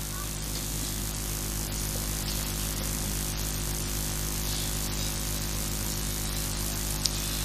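Steady electrical mains hum with hiss from the amplified sound system, with one short click about seven seconds in.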